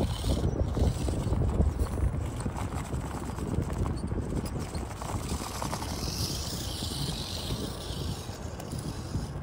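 Wind buffeting the microphone, a steady low rumbling noise, with a soft higher hiss joining about six seconds in.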